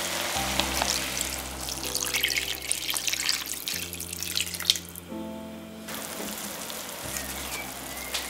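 Water poured from a measuring jug into a stainless steel pot of vegetables, splashing steadily and stopping about five seconds in. Soft background music with sustained chords plays throughout.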